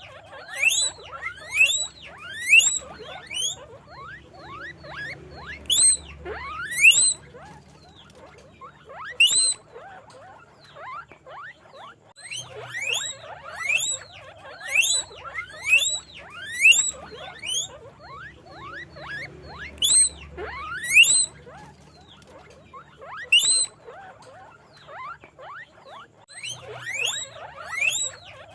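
Guinea pig wheeking: runs of short, high-pitched squeals that each rise in pitch, several in quick succession, broken by pauses of a few seconds.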